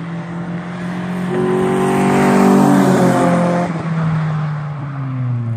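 A car driving past on the road. Its engine note grows louder toward the middle, then drops in pitch as it moves away.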